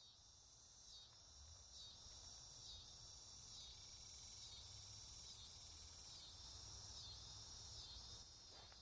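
Faint chorus of crickets: a high, pulsing trill repeating a little more than once a second, over a low rumble of outdoor ambience.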